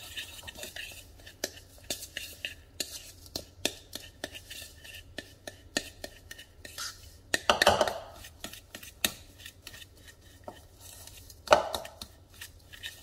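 A fork mashing butter into brown sugar and flour in a mixing bowl: quick, irregular taps and scrapes against the bowl, with two louder strokes about halfway through and again near the end.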